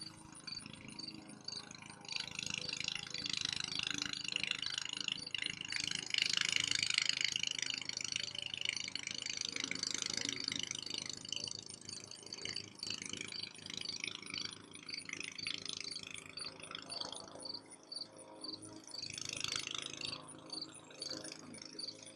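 Crickets chirping in a steady, even rhythm, over a rustling background noise.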